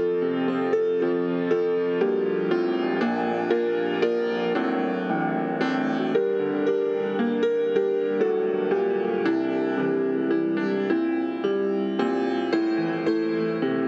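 Instrumental piano music, notes struck one after another at an even, unhurried pace.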